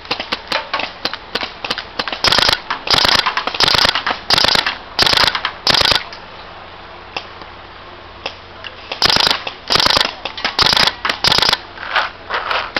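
SP-1 paintball marker firing in three-shot bursts: rapid sharp pops, bursts coming about every half second. They stop for a few seconds about six seconds in, then start again about nine seconds in.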